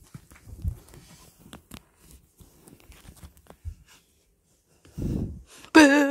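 Rustling and scattered clicks of a phone being handled, a low thump about five seconds in, then near the end a loud drawn-out high-pitched voice, a young child's whine that rises in pitch as it ends.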